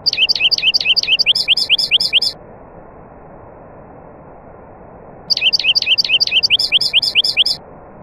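A songbird singing the same fast phrase twice, each about two seconds long: a rapid run of a dozen or so short whistled notes, about five a second, each sweeping in pitch. A steady low hiss runs underneath.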